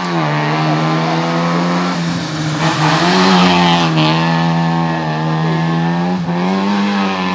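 Fiat Cinquecento race car's engine held at high revs through a cone slalom, dipping briefly a couple of times. It is loudest about three to four seconds in as the car passes close, then fades as it pulls away.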